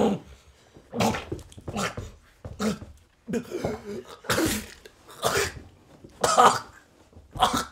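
A person's heavy, ragged gasping breaths, about one a second, some with a strained, voiced edge.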